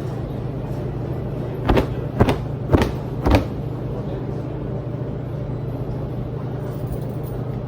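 Steady low hum of laundromat washers and dryers running, with four sharp knocks about half a second apart a couple of seconds in.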